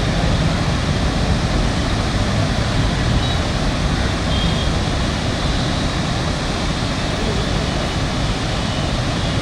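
Floodwater rushing through the open gates of a river barrage: a loud, steady roar of water.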